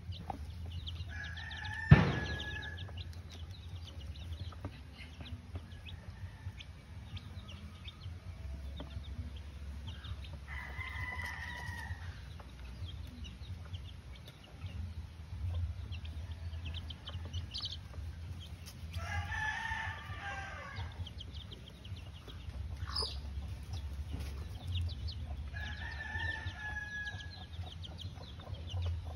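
Gamefowl roosters crowing four times, each crow about two seconds long, with a sharp knock about two seconds in.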